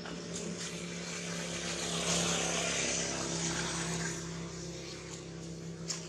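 An engine passing: a steady hum that swells to its loudest about two seconds in and then eases off.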